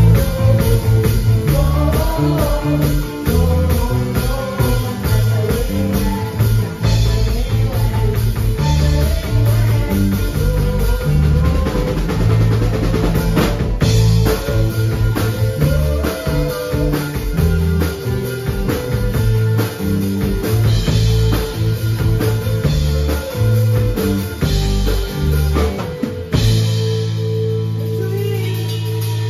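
A live rock band playing: drum kit beating a steady rhythm under electric guitars and bass guitar, with a woman singing at times. About 26 seconds in, the band hits a final accent and lets one chord ring out.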